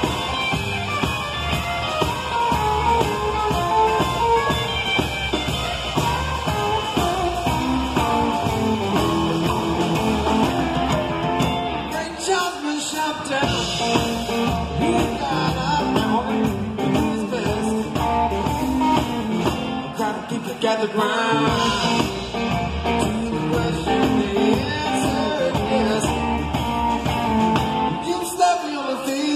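Live band playing a rock-and-roll song with electric guitar, acoustic guitar, upright bass and drum kit; the bass and drums drop out briefly three times.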